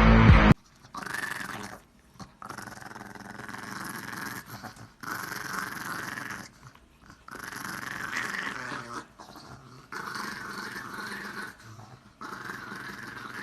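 A dog growling in about six long bouts, with short pauses between them.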